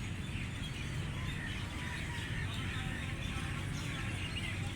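Birds chirping and twittering in quick, scattered high calls over a steady low rumble.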